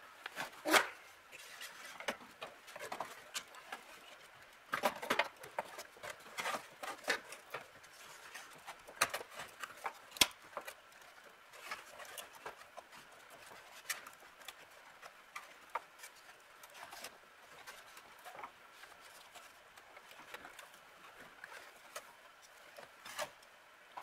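Irregular clicks, taps and knocks of metal dash parts being handled as the 1948 Chevrolet's instrument panel is worked loose and pulled forward. The loudest knock comes about a second in, with a cluster of taps a few seconds later and a sharp click near the middle.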